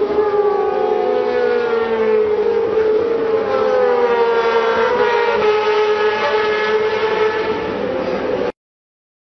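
High-revving racing motorcycle engines, a steady high whine that drifts slowly down and back up in pitch, with more than one engine overlapping at times. It cuts off suddenly about eight and a half seconds in.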